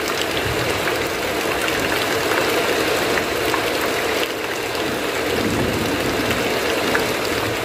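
Heavy rain falling steadily on a roof: a dense, even hiss with scattered sharper ticks of drops striking close by.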